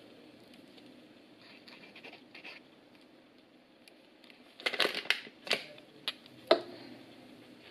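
Light scratching, then a handful of sharp clicks and knocks, about a second and a half after the middle, as a glass jar of pine nuts is tipped and handled.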